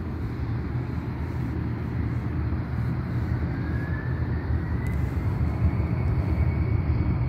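Distant jet airliner engine noise at an airport: a steady low rumble, with a faint whine that rises in pitch from about halfway through as the engines spool up.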